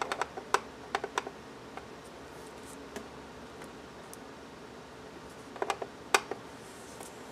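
Light, scattered clicks and taps of a bone folder against paper on a grooved scoring board while an envelope flap is scored: a cluster in the first second or so and another about six seconds in.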